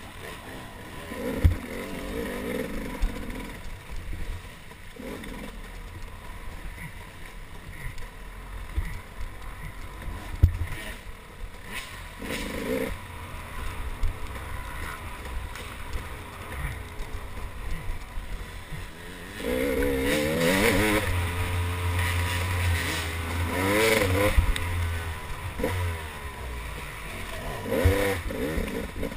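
Dirt bike engine running under load, its revs rising and falling repeatedly as the throttle is worked, loudest in a run of quick rev climbs from about two-thirds of the way through. A few sharp knocks stand out, the loudest about a second and a half in and about ten seconds in.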